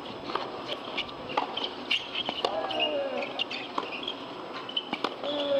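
Sharp pops of a tennis ball bouncing and being struck on a hard court, spaced a second or so apart, over steady outdoor background noise with high, short chirps. Two short sliding calls come about halfway through and near the end.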